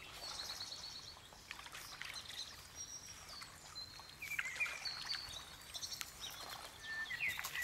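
Faint, scattered high bird chirps and peeps, with a quick trill of repeated notes near the start, over light clicks and rustling from footsteps on the forest floor.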